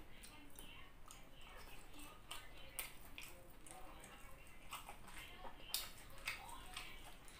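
A person chewing boiled chicken, with wet mouth clicks and lip smacks at irregular intervals; the sharpest click comes a little over halfway through.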